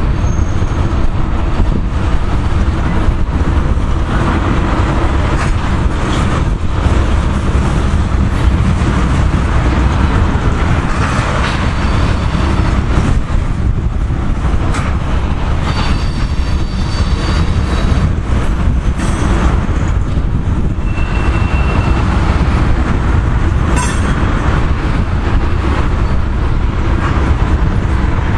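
A long freight train of loaded ethanol tank cars rolling past close by: a steady, continuous rumble and rattle of wheels on rail.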